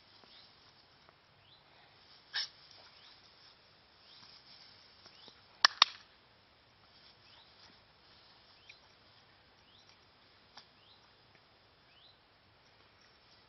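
Quiet outdoor field ambience with faint bird chirps throughout, a brief noise a couple of seconds in, and a pair of sharp clicks about halfway through, the loudest sounds heard.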